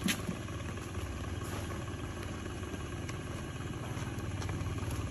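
A small engine idling steadily with an even low rumble, with a short knock right at the start.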